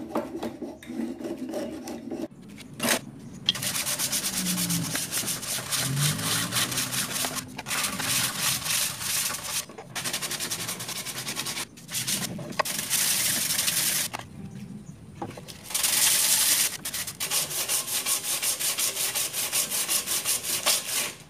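A wooden ladle being scraped smooth by hand with fast, rhythmic back-and-forth strokes, in several runs broken by short pauses, as its back is refined.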